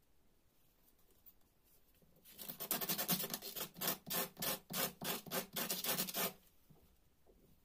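Sandpaper rasping as a paper spinning top with a toothpick axle is rubbed back and forth on it, about three quick strokes a second for some four seconds.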